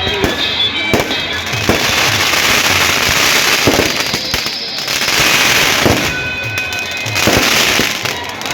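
Fireworks going off: a string of sharp bangs with long stretches of hissing crackle between them, over music.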